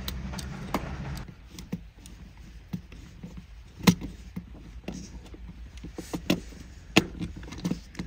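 Scattered clicks and taps of a screwdriver working the ground screw of a GFCI outlet and handling the copper ground wire, with two louder knocks about four and seven seconds in. A low hum stops about a second in.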